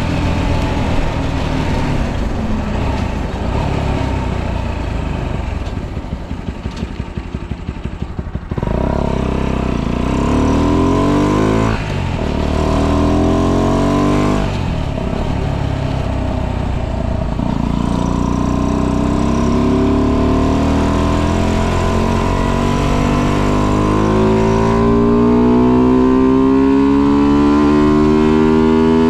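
A tuned 125cc motorcycle engine with modified intake and exhaust and advanced ignition, heard from the rider's seat while riding. It runs rough and a little quieter for the first eight seconds or so. Then it pulls away, its pitch climbing and dropping back at about three gear changes, ending in one long rising pull.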